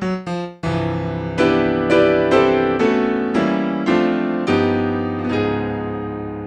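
Jazz piano. A quick descending run of single notes ends just after the start, then a series of struck chords over deep bass notes, the last one left to ring and fade.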